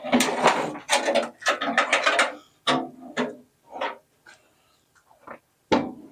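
A fluorescent light fixture being taken down from wooden ceiling joists: a dense run of knocks and scrapes for about two seconds, then several separate knocks.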